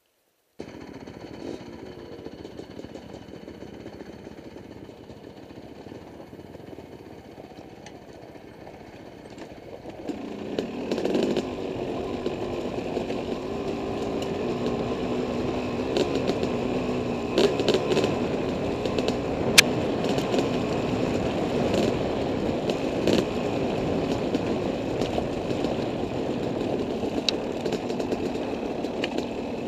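Dirt bike engine running while ridden over rough trail. It is quieter at first, then louder from about ten seconds in, its pitch wavering as the throttle is worked, with scattered sharp knocks and ticks.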